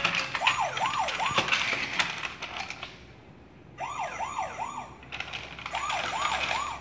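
VTech Go Go Smart Wheels toy ambulance car playing its electronic siren: three sets of three quick rising-and-falling wails, with a short pause after the first set. Light clicking and rattling of the plastic car on the track runs under the first set.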